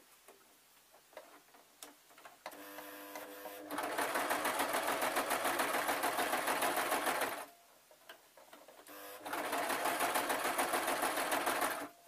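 Domestic electric sewing machine stitching a seam in two runs. It starts slowly about two and a half seconds in, speeds up to a fast even run for several seconds and stops. After a short pause it runs fast again for about three seconds and stops just before the end.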